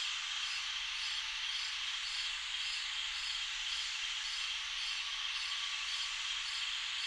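Summer-night insect chorus: a dense, steady high buzz of many night insects, with a faint regular pulsing on top.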